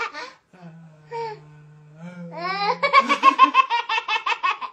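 A baby and a woman laughing together. A short laugh opens, then a low steady hum for about two seconds, then a long run of quick rhythmic laughter that starts with a rising glide.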